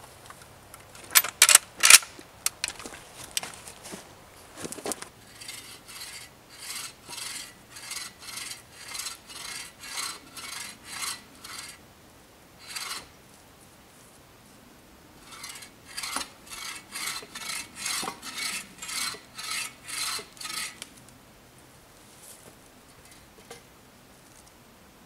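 A few sharp knocks, then a folding bow saw cutting through a thin wooden pole in two runs of steady back-and-forth rasping strokes, about one and a half a second, with a short pause between the runs.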